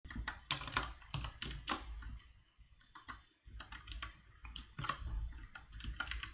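Computer keyboard being typed on in quick, irregular runs of keystrokes, with a brief lull partway through.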